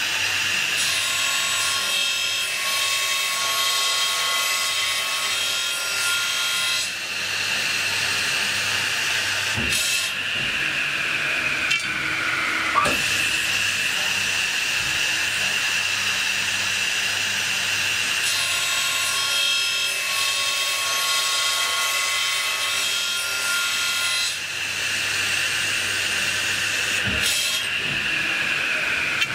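CNC circular cold saw cutting through a bundle of aluminum solid bars. The spinning blade gives a steady high whine, with a cluster of ringing tones that comes and goes twice, and a short falling sweep in pitch with a knock between them.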